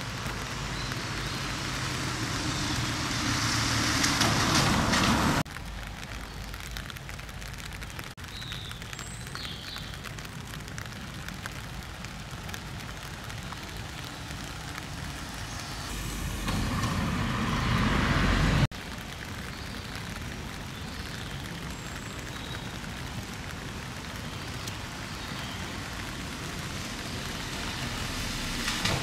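Steady rain falling, a continuous hiss. Twice it swells louder with a low rumble under it, then drops suddenly to a quieter level.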